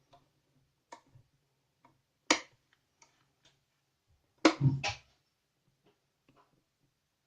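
Sharp clicks and knocks from small tools and parts being handled on a table, loudest about two seconds in and twice in quick succession about four and a half seconds in, over a faint low hum.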